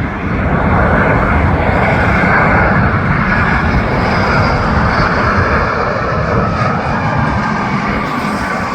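Jet airliner passing low overhead on its landing approach: a loud, steady engine rush that swells up within the first second and eases off near the end, with a faint high whine in the middle.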